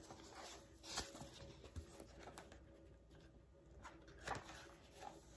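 Faint paper rustling and soft taps as a hardcover picture book is handled and its page turned, with brief louder rustles about a second in and again after about four seconds.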